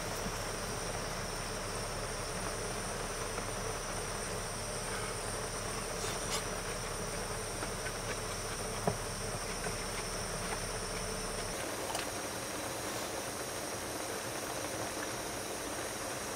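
Canister gas stove burner hissing steadily under a simmering pot, with a few light clicks of chopsticks and utensils.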